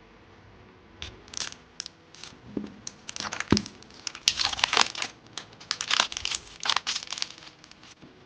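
Blind-bag packaging crinkling in bursts as it is handled and opened, with tearing sounds.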